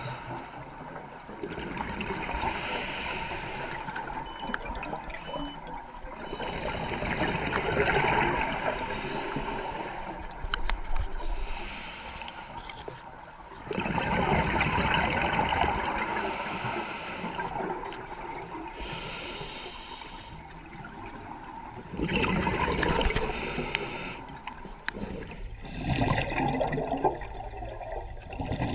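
Scuba diver breathing through a regulator, heard underwater: rushes of bubbling exhaled air that come and go every several seconds.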